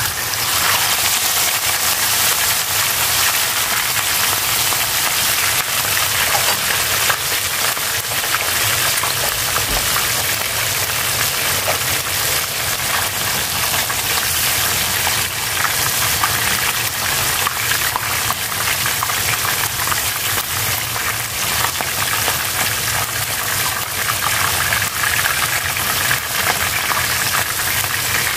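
Tail piece of an ikan semah fish frying in hot oil in a shallow pan: a loud, steady sizzle full of fine crackling, starting as the fish goes into the oil.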